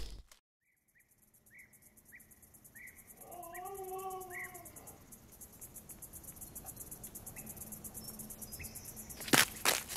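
A single animal howl, one wavering call of about two seconds that rises and then falls, over faint steady insect chirping. Near the end a run of loud sharp knocks begins.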